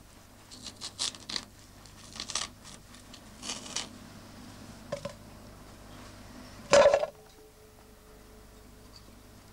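Fingers peeling the skin off a cooked beetroot make several short scratchy rasps. About seven seconds in there is a single loud knock on an enamel bowl, which rings on briefly as a steady tone.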